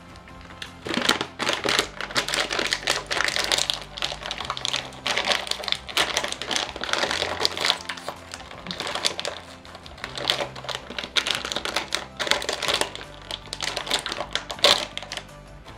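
Plastic snack bag of shrimp chips crinkling and crackling as it is handled and opened, a dense run of irregular crackles, over soft background music.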